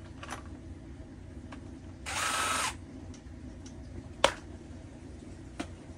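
A power drill runs in one short, steady burst of about half a second, a couple of seconds in. Several sharp clicks of parts being handled come around it, the loudest about four seconds in.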